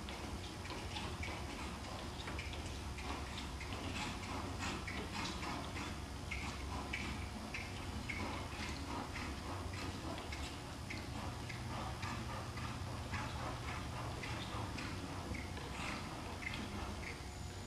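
A dressage horse's hooves beating on the soft sand footing of an indoor arena as it trots, a run of irregular dull thuds and scuffs over a steady low hum.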